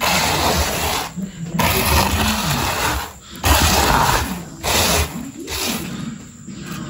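Handfuls of rice grains, some still in the husk, stirred and let fall back onto a woven mat: a dry rattling hiss in about four bursts, weaker near the end.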